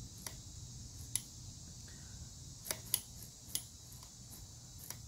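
Faint, sharp clicks, about six spread unevenly, from the 1986 Honda Rebel 250's carburetor throttle pulley as the new throttle cable is worked and the return spring snaps it back against its stop, over a low steady hum. The throttle is returning properly.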